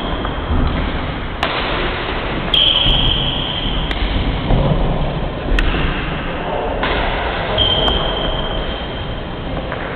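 Badminton rally: a racquet strikes a feathered shuttlecock about six times, a sharp crack every second or so. Long high squeaks come in between, and the hall echoes.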